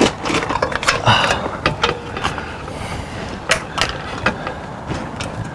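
Irregular clanks and knocks, some with a brief metallic ring, from a new electric awning arm being handled and hung in place on an RV.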